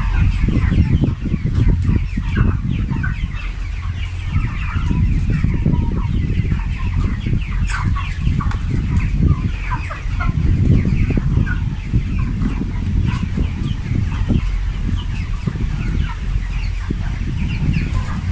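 A large flock of broiler chickens clucking and cheeping together, many short calls overlapping without pause, over a steady low rumble.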